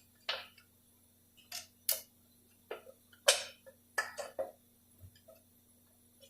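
Hand tools and metal parts clicking and clinking during the teardown of a Dodge 46RE automatic transmission, in about nine separate, irregular taps.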